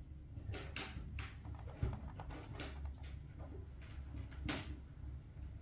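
Soft, scattered taps and scuffs of a Maine Coon kitten's paws on a wooden floor, over a steady low rumble.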